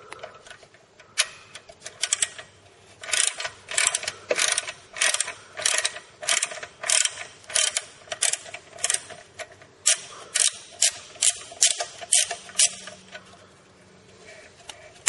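Socket ratchet wrench clicking in quick repeated strokes, about two a second, as it turns the exhaust mounting bolt on a motorcycle. It stops near the end.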